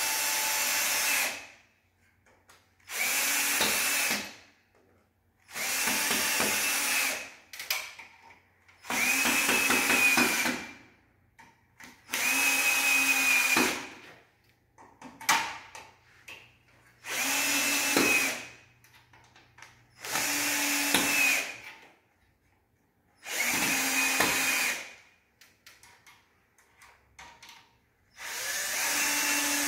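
Cordless drill/driver running in about eight short bursts of one to two seconds each, with pauses and small clicks between them, driving screws through an air conditioner's steel wall-mounting plate.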